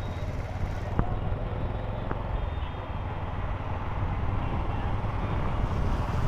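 Motorcycle running on the road, a steady low rumble with road noise, with two short clicks about one and two seconds in.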